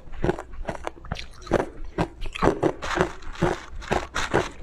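Close-up crunching and chewing of hard frozen ice chunks in the mouth: a quick, irregular run of sharp cracks, several a second.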